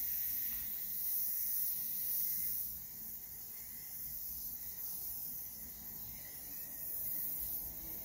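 Aerosol spray paint can (Krylon ColorMax gloss black) hissing as it is sprayed through a clip-on trigger handle, a little louder in the first few seconds.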